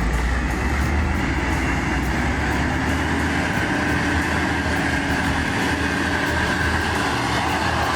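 A heavy vehicle running: a steady low rumble with a wash of mechanical and road noise and faint engine tones, unchanging throughout.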